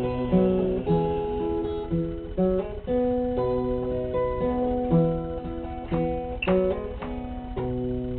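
Acoustic guitar strummed, playing the closing chords of a slow country ballad after the last sung line.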